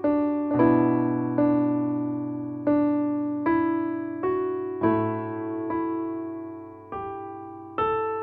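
Background music: electric piano playing slow, soft notes and chords, each struck and left to fade before the next, about one or two a second.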